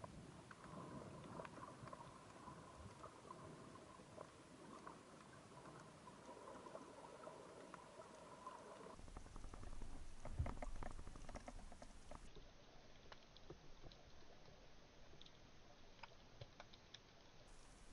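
Faint underwater ambience with scattered crackling clicks. A faint steady hum runs through the first half, and a low rumble comes in about halfway and swells briefly.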